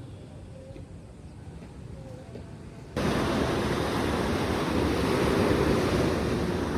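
Faint hiss, then about three seconds in an abrupt cut to the steady noise of sea surf with wind on the microphone.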